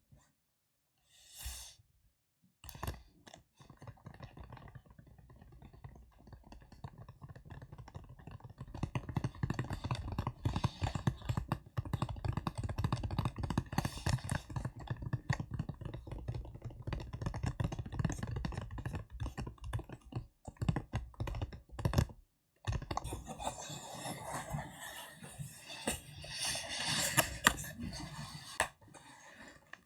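Close-miked ASMR tapping and crackling made by hands: a dense, rapid run of small clicks and taps. It starts as a few separate sounds, then becomes continuous, with a brief pause about two-thirds of the way through.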